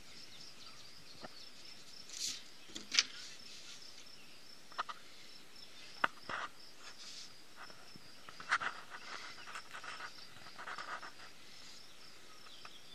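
Rubber eraser rubbing on drawing paper, with scattered short rubs, taps and paper rustles, the sharpest about three seconds in. A faint steady high pulsing tone runs beneath it throughout.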